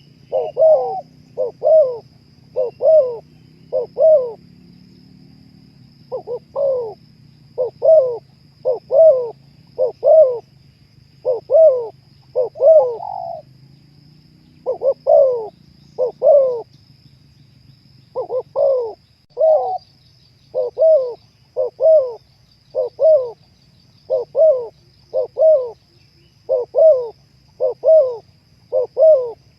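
Spotted dove (terkukur) cooing: short repeated coos, about one every half second or so, in runs broken by brief pauses.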